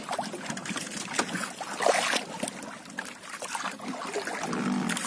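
Sea water splashing and lapping against the side of a small outrigger boat as a net fish trap is hauled up beside it, with scattered irregular knocks and one louder burst about two seconds in.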